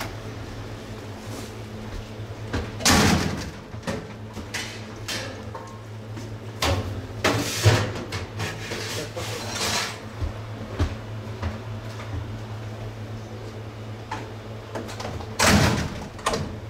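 Stainless steel serving pans being slid and set down into the wells of a heated serving counter: metal scraping and clunking in several bouts, the loudest about three seconds in, around eight seconds and near the end, over a steady low hum.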